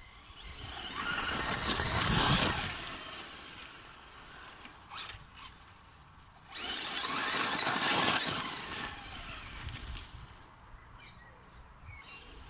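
Brushless Traxxas Slash 4x4 RC truck running fast over gravel: two loud passes of high-pitched motor and tyre noise, the first building about a second in, the second starting abruptly about six and a half seconds in, each fading away.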